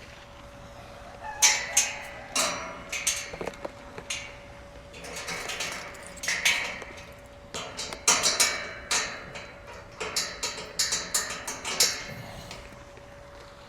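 A series of about twenty sharp, irregular knocks and crunches, clustered and unevenly spaced, over a faint steady hum.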